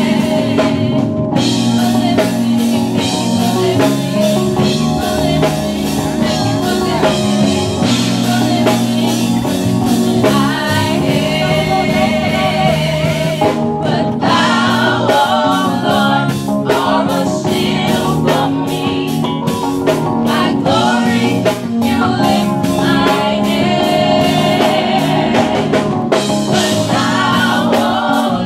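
Live gospel singing by a mixed group of men and women, backed by drums and a band.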